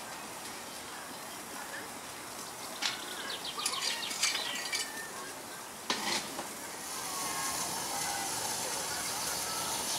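Steam hissing from a miniature steam locomotive, with a few sharp metallic clicks and a knock in the middle; the hiss grows louder about seven seconds in.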